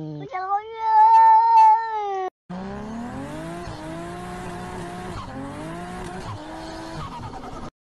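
A cat yowls in one long, loud, drawn-out call lasting about two seconds, its pitch held high, then stops suddenly. After that comes a noisy hiss with a pitched sound that rises and wavers, like a car engine revving.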